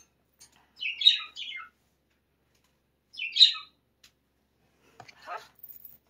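Small pet birds chirping: a quick pair of high, warbling chirps about a second in and another single chirp about three and a half seconds in.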